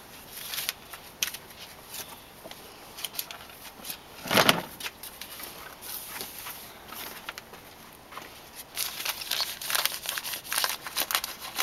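Handling noise on a plastic toy ride-on car as it is wiped with a cloth: scattered light taps and rustles, one louder thump about four seconds in, and a quicker run of taps near the end.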